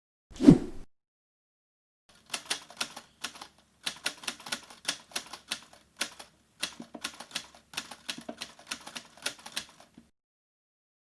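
Typewriter typing: quick, irregular key strikes in runs for about eight seconds. Before it, about half a second in, a single short loud sound that drops in pitch.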